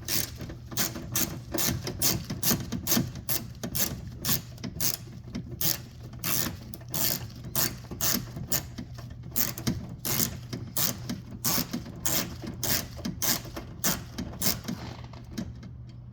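Hand ratchet clicking steadily, about three clicks a second, as it backs out a tight T10 Torx screw that holds the door mirror. The clicking stops about fifteen seconds in.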